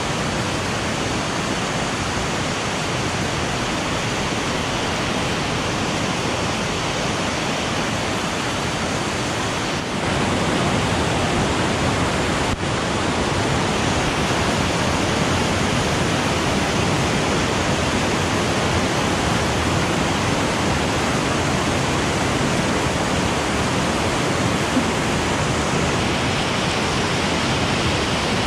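Fast river rushing over rocks in whitewater rapids, a loud steady rush close to the microphone that grows a little louder about ten seconds in.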